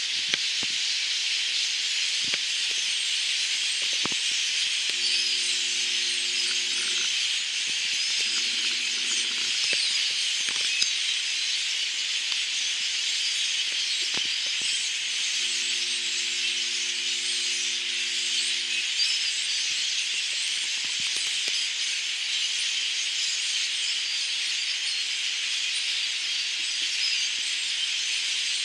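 A large flock of migrating birds calling all at once, a dense, steady chattering din without pause.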